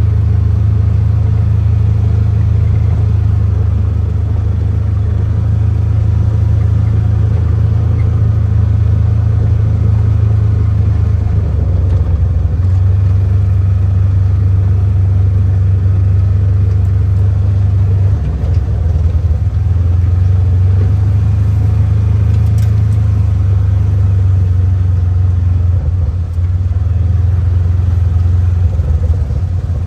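Steady, loud low rumble of a motor vehicle on the road.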